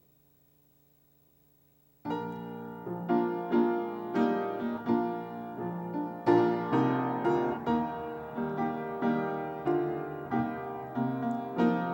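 Piano playing a slow, tender piece that begins about two seconds in after near silence, chords struck roughly twice a second.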